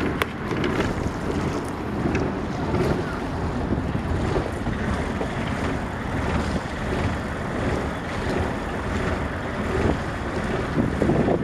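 Yanmar Tobiuo 32 fishing boat under way, its engine running steadily as it heads out, with water along the hull and wind buffeting the microphone.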